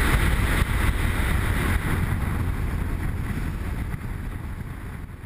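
Riding noise of a BMW R1150 GS motorcycle at road speed, mostly wind rushing over the GoPro microphone, with a deep low rumble underneath. It fades out steadily.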